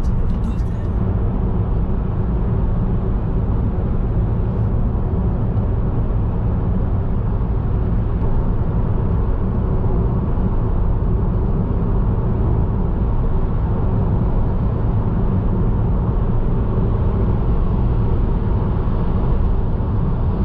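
Steady low rumble of road and engine noise from a vehicle driving at an even pace.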